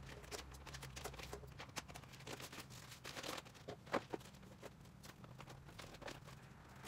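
Rustling and crinkling of packaging with scattered small knocks and clicks as parts are taken out of a cardboard box; the sharpest knock comes about four seconds in.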